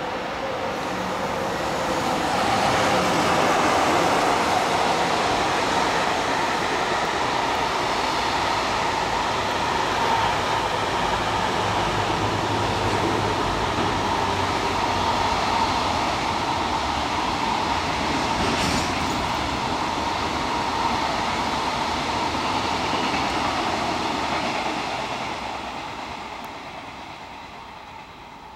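Container freight train hauled by an EF66 electric locomotive passing at speed. The locomotive comes up and goes by about three seconds in, then a long string of container wagons rolls past with a steady rumble of wheels on rail, fading away near the end.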